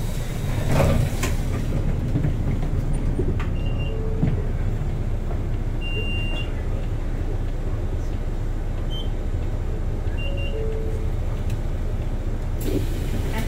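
City bus engine and cabin running with a steady low rumble as the bus pulls in and stands at a stop, with a few short electronic beeps and a brief hiss near the end.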